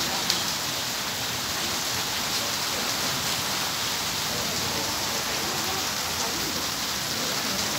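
Heavy rain pouring down in a steady hiss on trees, grass and roof, with water streaming off the eaves. One brief tap stands out about a third of a second in.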